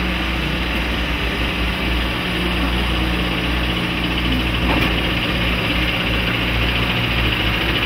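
Diesel engine of a Mercedes-Benz Unimog U 423 running steadily as the truck and its trailer roll slowly forward.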